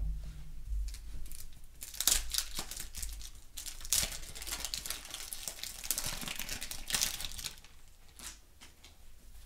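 Waxed-paper wrapper of a 1991 Topps baseball card pack being torn open and crumpled in the hands: a dense crinkling and crackling from about two seconds in, dying away near the end.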